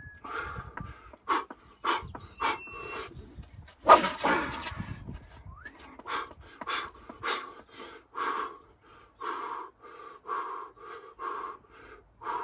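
A man breathing hard, short heavy puffs about twice a second, between maximum-effort swings of a golf speed-training stick. About four seconds in comes one loud full swing, the stick swishing through the air.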